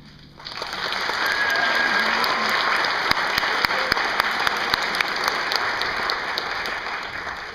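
Audience applauding at the end of a song, starting about half a second in and fading toward the end.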